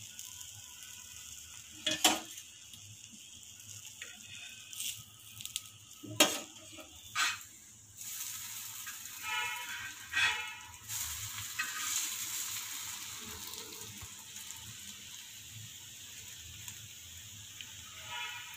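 Egg-dipped bread slices sizzling steadily on a flat tawa, with a few sharp knocks and a stretch of scraping from a metal spatula on the pan around the middle as a slice is turned over.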